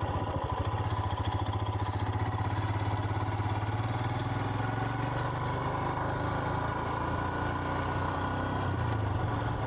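Royal Enfield Himalayan's single-cylinder motorcycle engine running steadily, its pitch holding nearly constant with a fine, even pulsing.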